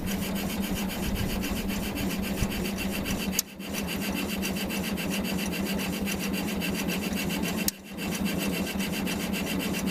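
International Cub Lo-Boy 154 tractor's starter-generator cranking its four-cylinder engine in three long runs, with brief pauses about three and a half and nearly eight seconds in. The engine turns over with an even rhythm but does not catch.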